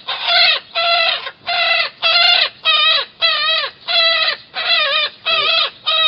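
A baby pileated woodpecker calling loudly over and over, about two short pitched calls a second, each call bending in pitch at its start and end.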